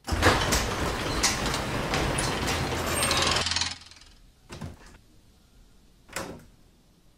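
Motorised garage door opening: a steady mechanical rattle and hum for about three and a half seconds that then stops. Two brief soft knocks follow.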